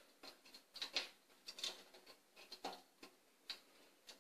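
Faint scattered clicks and taps of bungee-cord metal hooks against a ski trainer's painted metal frame as a cord is threaded in by hand, about a dozen light ticks at uneven intervals.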